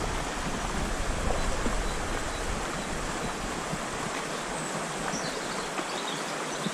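Small, shallow stream running over stones and gravel, a steady rush of water.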